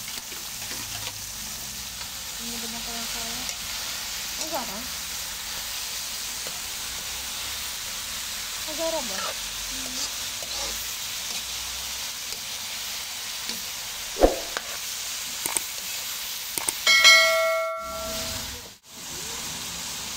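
Sliced bitter gourd sizzling in hot oil in a wok as it is stirred with a metal spoon: a steady frying hiss with a few sharp clinks of the spoon on the pan. A short bell-like chime rings about three-quarters of the way through.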